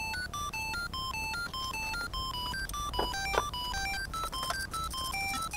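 Background electronic music: a quick run of short, beeping notes, about four or five a second. Two short clicks stand out a little past halfway.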